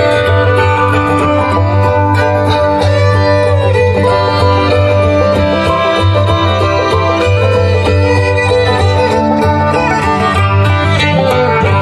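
Rock music with guitar over a strong, steady bass line, played loud through an NHL active PA kit of double-15-inch subwoofers under 12-inch top cabinets.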